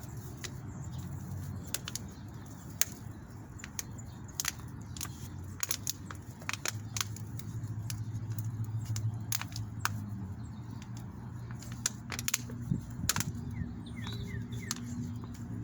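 Wind rumbling on the microphone, with many scattered clicks and crackles from handling a viola seedling and its soil; a few faint bird chirps near the end.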